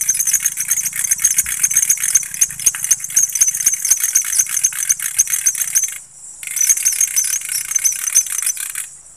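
A loud insect call, a fast rattling pulse train. It breaks off about six seconds in, starts again half a second later and cuts off near the end, over a fainter steady high-pitched insect tone.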